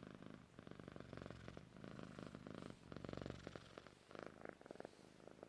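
Domestic cat purring with a snoring, snuffly rasp, faint, the purr swelling and easing in stretches with its breaths.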